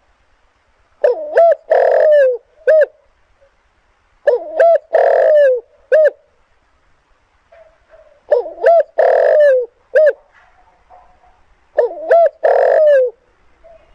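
Spotted dove cooing: four phrases about three and a half seconds apart. Each is a few short looping notes, a long loud coo, then a short note after it.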